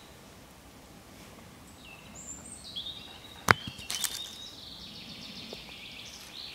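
High-pitched animal calls, chirps and rapid trilling, running through the second half, with one sharp snap about halfway through, the loudest sound.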